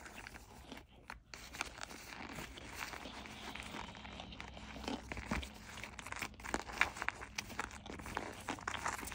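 Cornstarch chunks being crunched: a dense run of small, sharp crackles, with a short lull about a second in.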